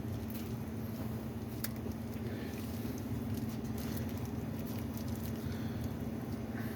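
Electric drain snake (sewer machine) running with a steady motor hum and a light patter of the spinning cable, a few sharp ticks on top.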